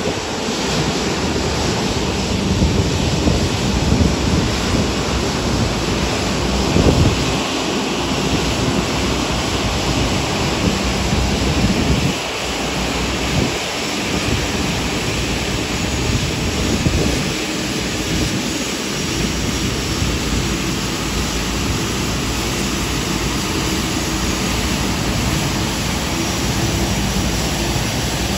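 Jet airliner engines running on an airport ramp: a loud, steady rushing hum, with uneven low surges of wind on the microphone.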